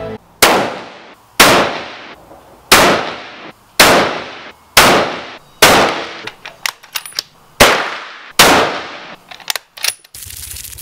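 Eight rifle shots from a bolt-action hunting rifle, each a sharp crack with a short echoing tail, spaced roughly a second apart. A few light clicks fall between the later shots.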